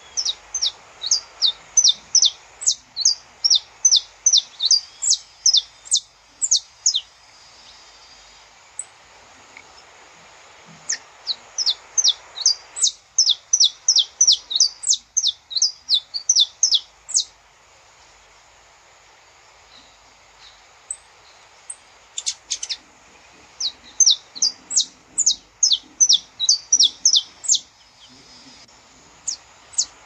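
Saffron finch (canário-da-terra) singing: runs of sharp, high chip notes at about three a second, in three long phrases with pauses of a few seconds between them.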